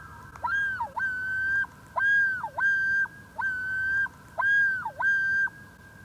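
Common loon yodelling: a run of repeated two-note phrases, each note swooping up, holding, then dropping away. This is the territorial call of a male loon, given with the head stretched low along the water.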